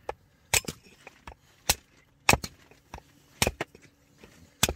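Firewood being chopped into kindling: a blade striking a short block of wood held upright on a wooden base. About six sharp, loud chopping knocks, roughly a second apart and somewhat irregular, with a few fainter taps between them.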